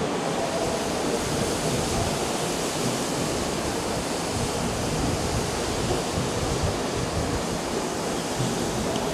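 A Nankai commuter electric train running along the platform, a steady, even noise of wheels on rails without separate clicks.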